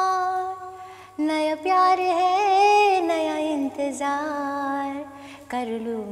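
A woman singing a slow song unaccompanied, holding long notes with a wavering pitch, in phrases broken by short pauses about a second in and about five seconds in.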